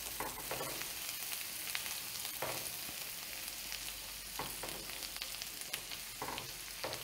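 Chopped shallots and butter sizzling gently in olive oil in a stainless steel skillet, a steady faint frying hiss, with a few soft scrapes as a silicone spatula stirs them through the pan.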